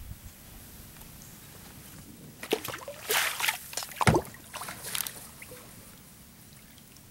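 Kayak paddle splashing and sloshing through the water for a few strokes, starting about two and a half seconds in, with a dull knock a little after the middle.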